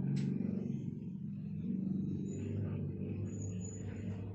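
Low, steady hum of a running motor, with a single click just after the start.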